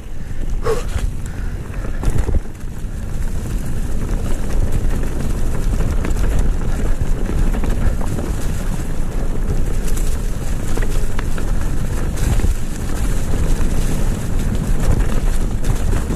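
Mountain bike riding over a rocky trail covered in dry leaves: a continuous rumble of tyres crunching over leaves and rocks with rattling from the bike, and wind buffeting the camera microphone.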